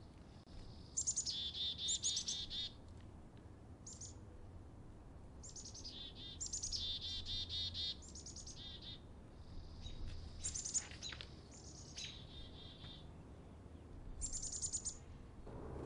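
Chickadees calling in about seven quick bouts, each a few high notes followed by a rapid run of lower, buzzy notes, with a couple of sharp downward-sweeping notes near the middle.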